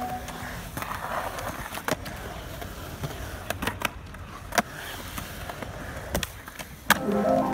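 Skateboard wheels rolling on the concrete of a skate bowl, a steady low rumble, with a few sharp clacks as the trucks and board hit the coping. Music comes back in near the end.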